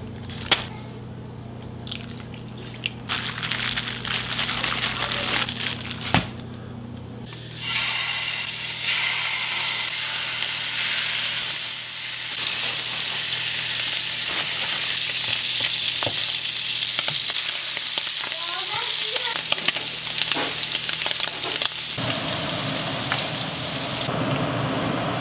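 A plastic bag crinkles as it is handled. About eight seconds in, sea scallops start sizzling as they sear in butter in a nonstick frying pan, and the sizzling keeps on steadily.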